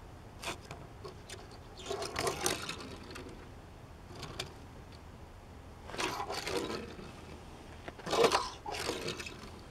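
Hot Wheels die-cast toy car pushed across a wooden tabletop, its small wheels rolling and skidding sideways with a light rattle in three short runs, with a few clicks as it is picked up and set down.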